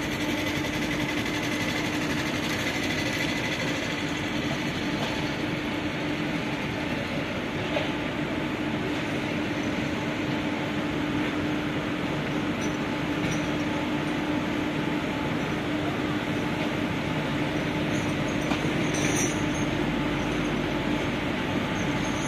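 WAG-7 electric locomotive approaching slowly, a steady running hum with a constant low tone, and a couple of brief clicks.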